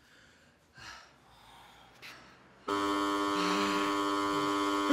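Near silence, then about two and a half seconds in a loud buzzer-like tone starts suddenly and holds steady, a flat pitch with many overtones, like an edited-in sound effect.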